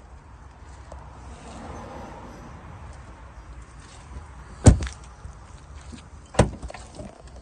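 Audi Q7 rear passenger door shut with a loud thud about halfway through, followed by a second, slightly weaker thud under two seconds later.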